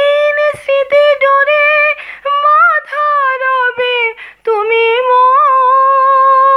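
A woman singing a Bengali song unaccompanied, close into a wired earphone's microphone. She sings several short phrases with quick breaths between them, then holds one long note with a slight wobble from about halfway through.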